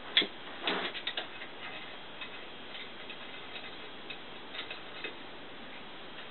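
Light metallic clicks and taps of tools and parts being handled during lathe chuck assembly: one sharp click just after the start, a short rattle of clicks about a second in, then scattered faint ticks.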